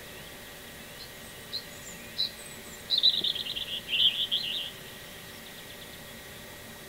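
A small songbird singing: a few single high chirps, then a quick twittering phrase lasting about a second and a half, over steady faint background noise.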